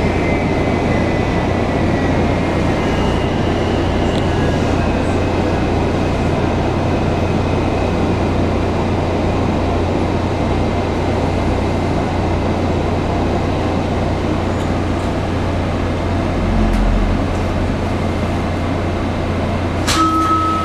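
Washington Metro 3000-series railcar running through a subway tunnel, heard from inside the car: a steady, loud rumble of wheels and running gear, with a faint tone sliding down in pitch over the first few seconds. A short steady tone starts near the end.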